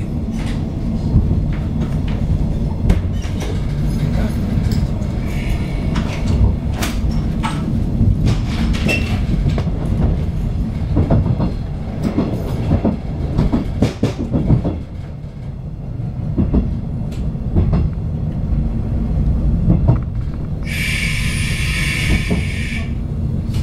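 A 485 series electric train running along the rails, a steady low rumble of wheels with sharp clicks as they pass over rail joints and points, thickest in the middle. Near the end a higher-pitched sound comes in for about two seconds.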